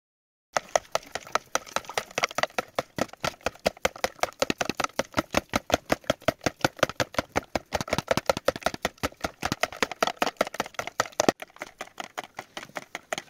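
Eggs being beaten with a metal spoon in a plastic tub: rapid, even clicking of the spoon against the tub, about six strokes a second, stopping about eleven seconds in.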